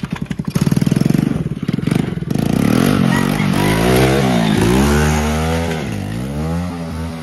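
Small youth ATV engine pulling away under throttle. It chugs in quick pulses at first, then revs up and down several times as the rider works the throttle, and eases off toward the end as the quad moves away.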